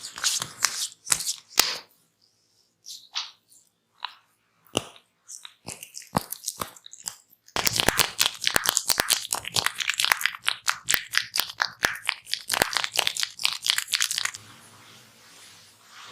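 Close-miked crisp crackling and scratching of fingers rubbing on hair and skin during a head or ear massage. Scattered crackles come first, then fast, continuous crackling for about seven seconds, which stops abruptly near the end.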